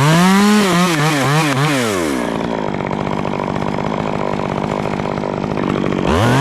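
Stihl two-stroke chainsaw revved to high speed, with a few quick dips in pitch, for about two seconds. It then drops back to idle and revs up again near the end.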